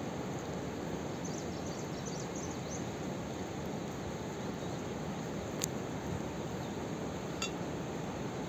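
Steady rush of running water from a small stream, with a few faint high chirps about a second in and a couple of sharp clicks later on.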